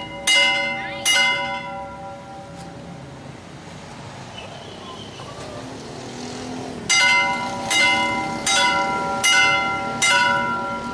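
Iron railway level-crossing warning bell (genta besi) being struck, each stroke ringing on with a metallic tone. Two strokes come in the first second or so, then a pause of about five seconds, then five strokes about one a second. It signals that a train is about to pass and the crossing gate is being closed.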